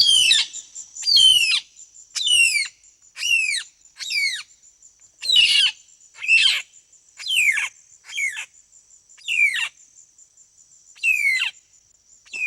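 A bird calling over and over, about once a second and sometimes in pairs, each call a sharp note sweeping down in pitch. Under the calls a steady high, finely pulsing insect buzz goes on.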